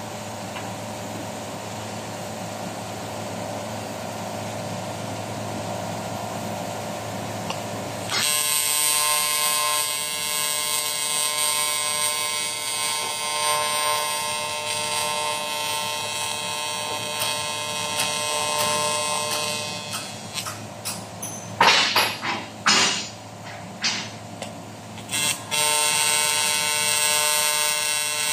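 AC TIG welding arc on aluminum buzzing steadily. It starts suddenly about eight seconds in; between about twenty and twenty-five seconds it cuts out and restarts several times in quick succession before running steadily again.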